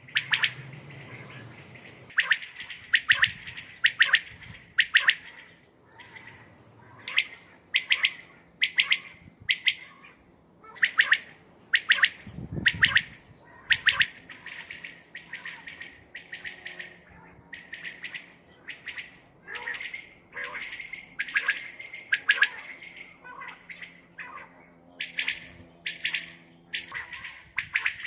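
Common quail calling: short sharp notes repeated in quick clusters of two or three, over and over.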